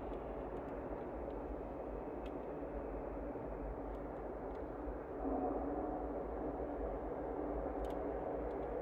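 Faint, steady distant rumble and hiss. About five seconds in, a low drone with faint steady tones rises slightly, typical of jet engines running far off.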